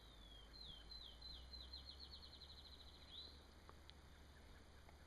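A bird singing faintly: a run of short high whistled notes, each sliding down, coming faster and faster into a trill, ending with one rising note about three seconds in.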